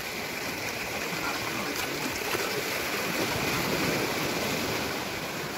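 Steady rush of shallow seawater sloshing against a speedboat's hull and around the legs of people wading as they push it off the beach.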